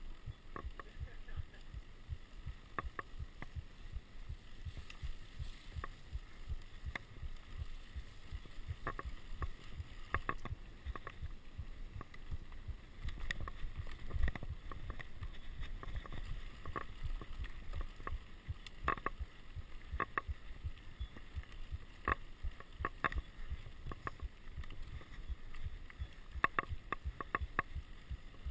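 Mountain bike rolling over a bumpy dirt forest trail, picked up by a camera on the rider: a constant low rumble and knocking from the terrain, with frequent sharp clicks and rattles from the bike. A heavier jolt about halfway through is the loudest moment.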